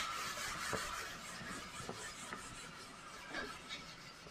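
Whiteboard being wiped clean: a soft rubbing hiss that fades over the first few seconds, with a few faint ticks.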